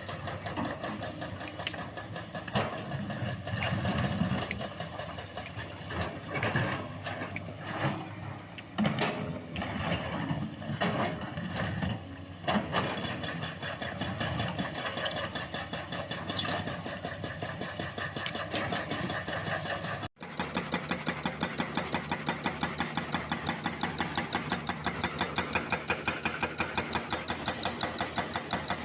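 Excavator diesel engine running while its hydraulic breaker works on reinforced concrete, with irregular knocks and clanks. After a sudden cut about two-thirds of the way in, there is a steady, rapid, evenly spaced hammering.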